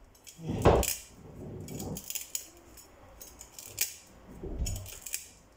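Kitchen knife scraping and cutting at a raw whole tilapia in a stainless steel sink: a series of short scrapes and clicks, with a louder knock about a second in.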